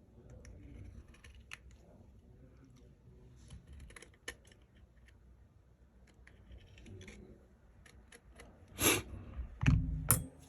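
Small clicks and taps of hand tools and parts handled on an iPhone during a camera repair. Near the end come a short rushing scrape and a low thump with a sharp click.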